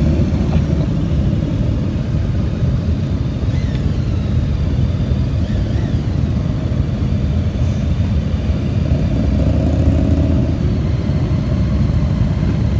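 A line of touring motorcycles and cruisers riding slowly past one after another, their engines running steadily at low revs. The sound grows a little louder about ten seconds in as a closer bike passes.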